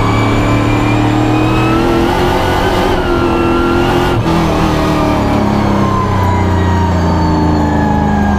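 Pro stock race car's V8 engine running hard at speed, heard from inside the cockpit. There is a brief lift about four seconds in, and the engine note falls steadily through the second half as the car slows.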